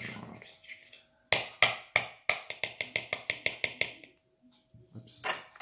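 Fork beating pancake batter in a bowl: quick clicking taps against the bowl, about five a second, for a few seconds, with a louder clatter near the end.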